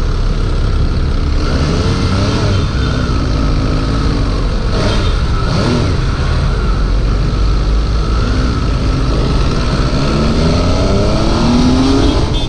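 Sport motorcycle engine accelerating in traffic, its pitch rising as it revs up about two seconds in and again near the end, over a steady loud rumble of riding noise.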